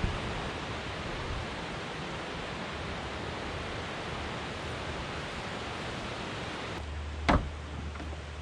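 Steady rushing noise of the outdoors, wind and running water blended. About seven seconds in a low hum starts, followed by a single sharp knock.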